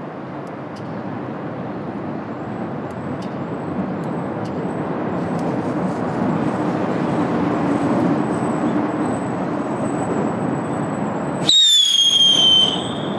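Steady outdoor city background noise that slowly grows louder, then about 11.5 seconds in a sudden loud, shrill whistle that slides slightly down in pitch and lasts about a second.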